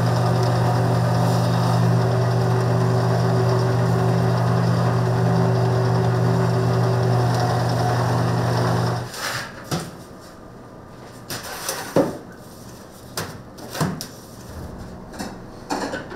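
A motor-driven kitchen machine running with a steady hum, stopping abruptly about nine seconds in. Sharp knocks and clatter of kitchen work follow.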